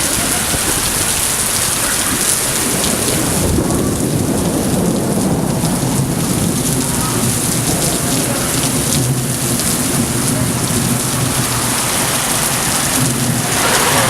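Heavy rain pouring and splashing on hard surfaces, a loud, steady hiss. A low rumble runs beneath it from a few seconds in until near the end.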